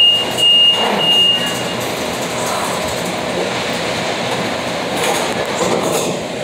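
Steady rumbling noise, with a high electronic beep sounding in three pulses in the first two seconds.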